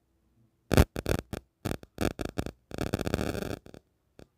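Clear plastic packing wrap crinkling and rustling as a gas stove is unwrapped: a quick run of sharp crackles starting under a second in, one longer rustle about three seconds in, then a couple of small clicks.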